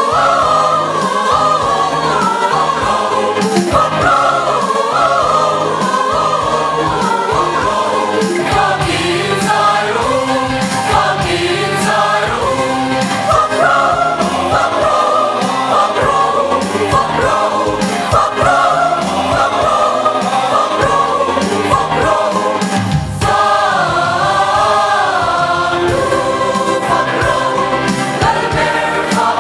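Church choir singing a hymn together, with instrumental accompaniment underneath.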